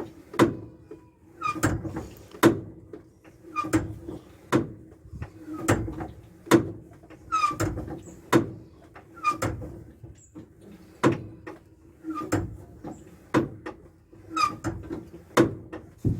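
A hand pump being stroked about once a second, each stroke a short clack with a squeak, pushing fluid up through a tube into the clutch slave cylinder to bleed the clutch hydraulics. A faint steady hum runs underneath.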